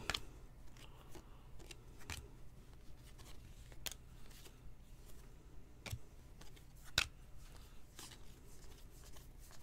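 Trading cards being handled by hand: faint, scattered clicks and light rustles, roughly one a second, over a low steady hum.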